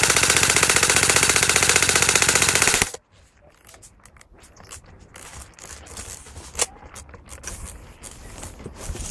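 Airsoft gun firing one long full-auto burst, a fast even rattle of shots that cuts off abruptly about three seconds in. Faint scattered clicks and knocks follow, one sharper near the middle.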